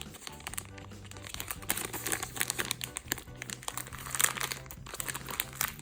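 Plastic packaging crinkling in irregular bursts as a squishy toy is handled in its bag, over soft background music with steady low notes.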